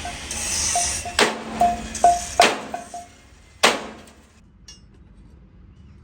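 A hammer striking metal about six times in the first four seconds, each blow followed by a short metallic ring, after a brief hiss.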